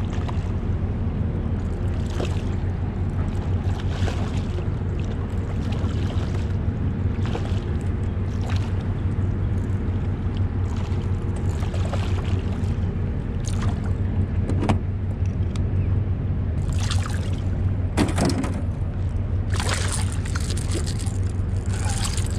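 Hooked striped bass thrashing and splashing at the surface beside a kayak, in short bursts that come thicker and louder over the last few seconds as it is brought in, over a steady low rumble.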